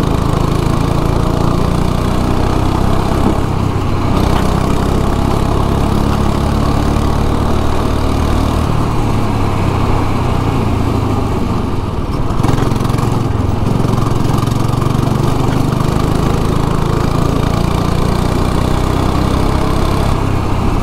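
Go-kart engine running hard from the driver's seat, its pitch shifting as the driver lifts and gets back on the throttle; a short dip about twelve seconds in, then it picks up again.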